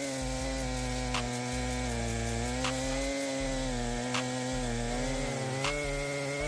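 Chainsaw running at high speed while cutting wood, its engine pitch steady with slight dips under load, and a short sharp tick about every second and a half.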